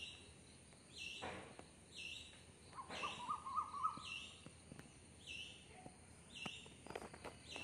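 A bird calling repeatedly in the background: a short high note about once a second. Another bird gives a brief warbling call about three seconds in.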